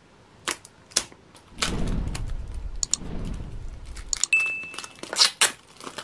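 Clear plastic shrink wrap being cut and torn off a hard plastic bit case, crinkling and crackling, with a few sharp clicks before and after. A short steady beep sounds about two-thirds of the way through.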